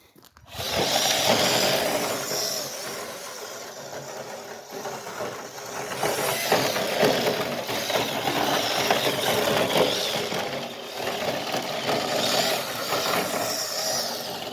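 Electric radio-controlled truck running on a 3S LiPo: its motor and drivetrain whine continuously as it is driven, starting about half a second in and surging up and down with the throttle.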